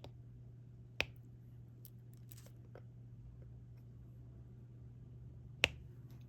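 Diamond-painting stylus tapping resin drills down onto the canvas: two sharp clicks about four and a half seconds apart, with a few fainter ticks between them, over a low steady hum.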